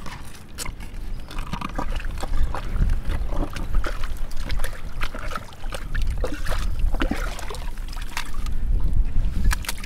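Shovel and gloved hand working through muddy water in a flooded privy pit: water sloshing, with many scattered sharp clicks and scrapes as the blade hits broken glass and debris in the mud.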